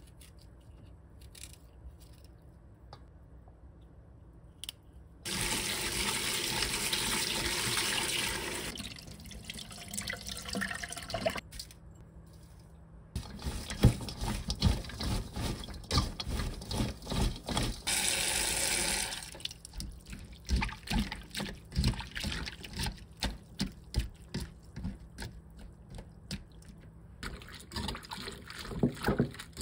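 Faint knife cuts through bellflower root, then a kitchen tap runs into a stainless steel sink for a few seconds and fades. After that come rhythmic squelching strokes of hands kneading salted bellflower root strips in a stainless steel colander to soften them, broken by a second short run of the tap.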